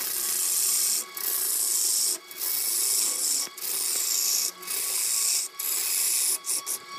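A lathe tool cutting into a large wooden blank spinning on a lathe: a loud scraping rasp as shavings peel off. It comes in cuts of about a second each, with short breaks between them about six times.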